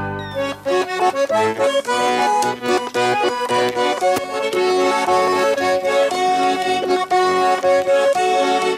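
Accordion playing a folk tune in quick short notes. It comes in just under a second in, after a held chord of theme music cuts off.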